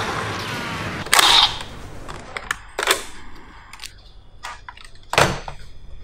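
Kamen Rider Diend's Diendriver toy gun playing its electronic gunshot sound effects: three loud shots, about a second in, near three seconds and just past five seconds, with lighter clicks between them.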